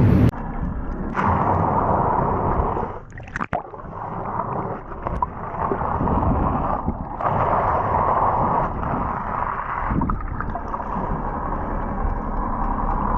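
Water sloshing and gurgling against a boat's hull, swelling and fading every few seconds, with one sharp knock about three and a half seconds in.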